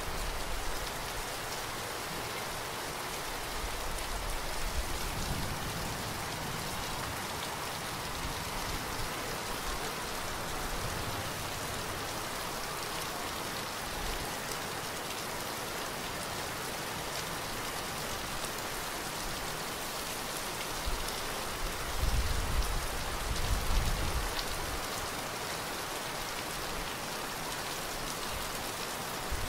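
Heavy rain falling steadily onto flooded ground and standing water, a dense even hiss of drops. Low rumbles swell under it about five seconds in and again, louder, a little past twenty seconds.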